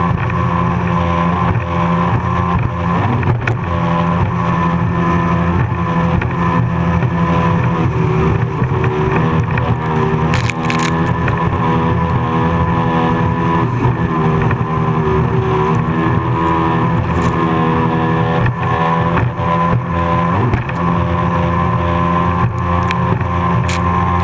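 Racing powerboat's engine running hard at speed, a steady drone whose pitch dips briefly a couple of times, over the rush and slap of the hull driving through choppy waves and spray. A sharp knock or splash cuts through about ten seconds in.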